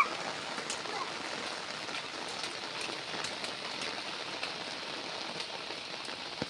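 Steady rain falling, an even hiss with a few faint drip-like taps.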